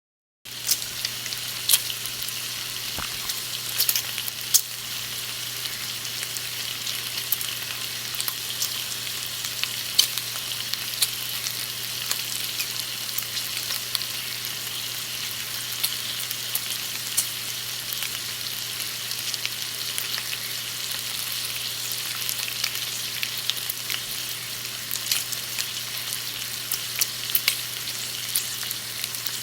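Bacon frying in a pan: a steady sizzle peppered with frequent sharp pops and crackles of spitting fat, starting about half a second in. A faint steady low hum runs under it.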